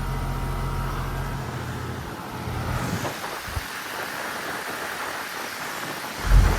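Goodman heat pump outdoor unit with a Copeland scroll compressor running in cool mode: a low hum under the steady rush of the condenser fan. The hum drops away about a second and a half in while the air rush continues and grows stronger, and a dull thump comes near the end.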